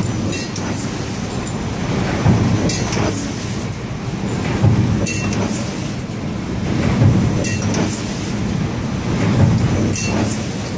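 Invernizzi Presse NKN1013 eyelet transfer press running, a continuous loud mechanical clatter and rumble with louder swells about every two and a half seconds and scattered light metallic ticks.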